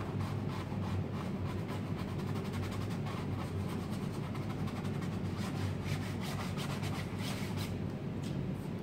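Paint being rubbed onto a stretched canvas with a brush in quick scraping strokes, busiest past the middle, over a steady low hum.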